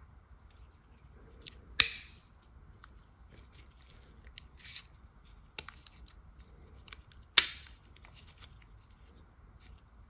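A Victorinox Hunter XS Swiss Army knife being handled: two sharp metallic clicks, one about two seconds in and one about seven and a half seconds in, with lighter clicks and ticks between.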